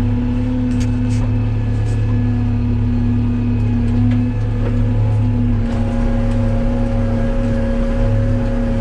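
Kubota tractor's engine running steadily while towing a wagon, a constant drone that steps up slightly in pitch about six seconds in.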